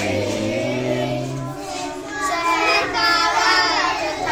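Children singing a song together in held, drawn-out notes. A lower held note under them stops about a second and a half in, leaving the higher young voices.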